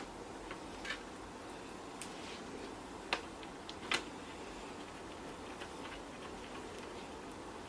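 A few scattered light clicks and ticks over a faint steady hum, the sharpest about three and four seconds in: small screws and a screwdriver being handled on a laptop's plastic casing during reassembly.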